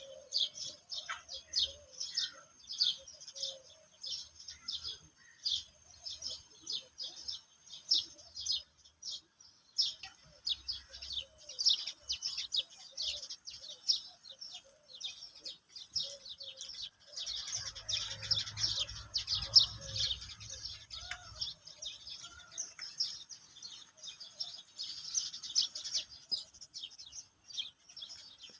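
Small birds chirping rapidly and continuously in a dense chorus of short high chirps, pausing briefly about a third of the way in. Around two-thirds through, a low rumble rises under the chirping for a few seconds.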